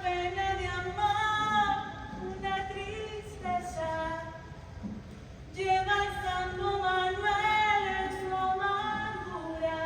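Female singing without instrumental accompaniment: long, held melodic notes, breaking off for about a second near the middle before the melody resumes.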